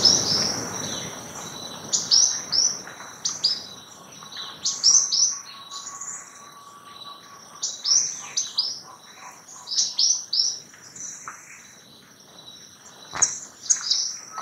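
White-winged tanager calling: short, sharp, downslurred high notes given in quick groups of two to four, with short pauses between the groups. A steady high-pitched whine runs underneath, and there is one soft knock near the end.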